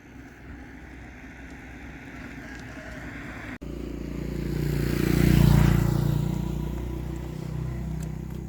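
A motor vehicle passes by: its engine noise swells to a peak about five and a half seconds in, then fades away.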